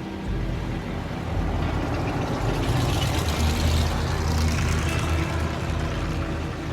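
A motor vehicle's engine running with a low, steady rumble that swells in the middle and eases toward the end.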